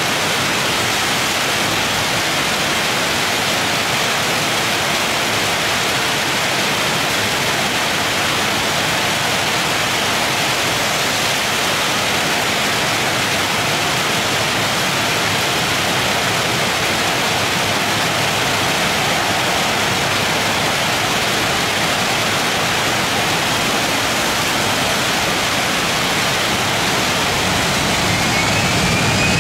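Heavy rain falling steadily. Near the end, a Boeing 737 freighter's jet engines start to spool up for takeoff with a faint rising whine.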